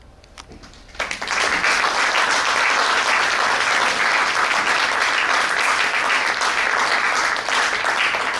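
A quiet moment, then audience applause breaking out about a second in and carrying on steadily.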